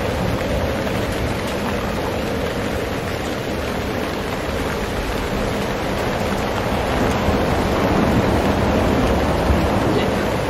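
Wind rushing and buffeting the microphone, with rain falling on the tarps, rising a little about seven seconds in.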